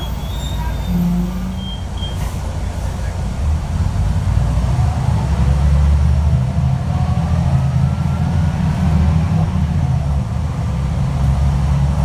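Articulated diesel bus's engine and transmission heard from inside the cabin. The engine drone grows louder about four seconds in, and a faint rising whine climbs as the bus picks up speed.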